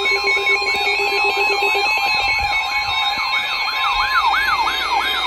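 Electronic emergency alert sounds layered together: a siren wailing up and down, its sweeps quickening toward the end. Under it run a steady alert tone and a series of stepping electronic beeps.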